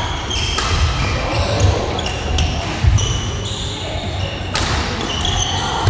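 Badminton doubles rally: several sharp racket strikes on the shuttlecock about a second apart, with rubber-soled shoes squeaking and feet thudding on the wooden court floor.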